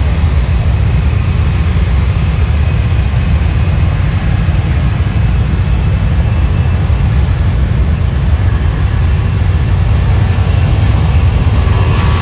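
Boeing C-17 Globemaster III's jet engines running on the runway: a loud, steady rumble with a faint whine coming in near the end.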